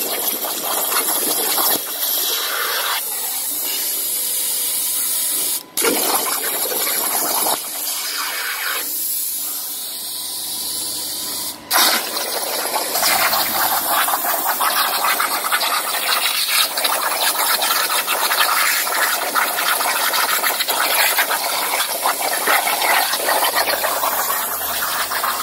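Thermal Dynamics A60i plasma cutter's arc cutting sheet steel on a CNC table: a steady, loud hiss that stops for a moment twice.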